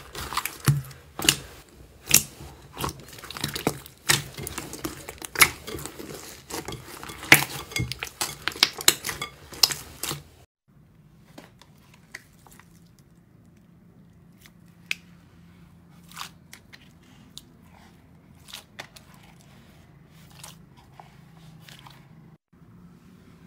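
Hands squeezing and kneading purple slime packed with foam beads, giving dense, irregular crackling and squelching pops. About ten seconds in it cuts off, leaving only faint occasional soft clicks as hands press into a thick slime in a bowl.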